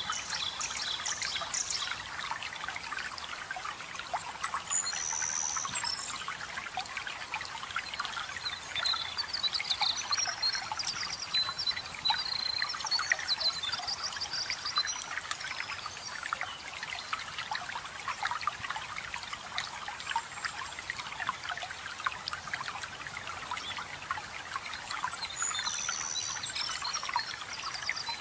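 Running water trickling and splashing steadily, as from a small waterfall or stream. Songbirds chirp in short high phrases now and then over it, most around the middle and near the end.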